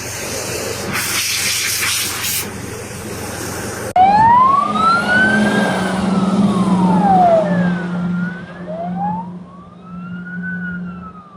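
Broad outdoor vehicle noise, then about four seconds in an emergency vehicle's siren wails in slow rises and falls over a steady low engine hum.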